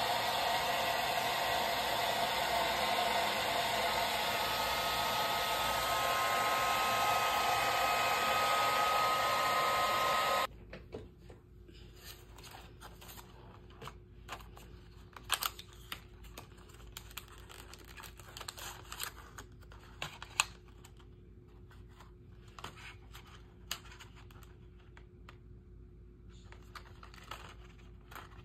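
Hair dryer blowing steadily, cutting off abruptly about ten seconds in. After that come scattered light clicks and taps over a quiet background.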